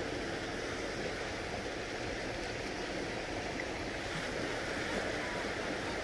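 Small waves of the calm Mediterranean washing onto the shore: a steady, even wash of surf.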